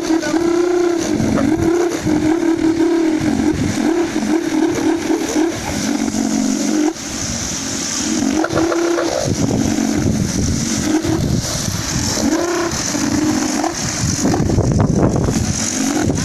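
Motor vehicle engine revving up and down repeatedly under a steady rush of road and wind noise.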